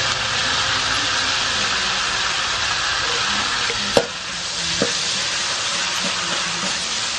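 Chopped garlic sizzling in hot oil in a steel wok while a metal spatula stirs and scrapes it. About four seconds in the spatula strikes the wok with a sharp clink, and a lighter clink follows a moment later.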